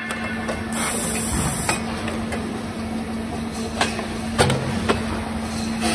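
Fritz Gross GS425 automatic circular sawing machine running with a steady hum, a short hiss about a second in, and a few sharp metal clanks a little past the middle as the machine moves the stock.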